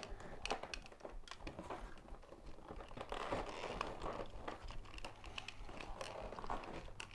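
Crinkling and rustling of toy packaging and paper being handled, with scattered small clicks and taps of plastic parts.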